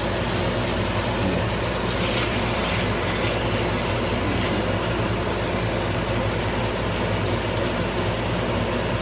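Chicken pieces sizzling in butter in a cast-iron skillet, over a steady low hum.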